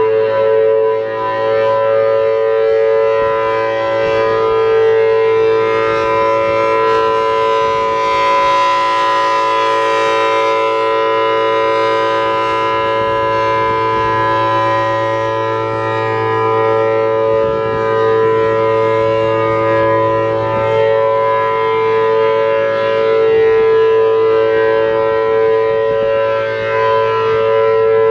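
Federal Signal Thunderbolt 1000T supercharged outdoor warning siren with a 4/5-port rotor, sounding the steady alert signal: a loud, held two-tone chord at constant pitch, swelling and fading gently in loudness.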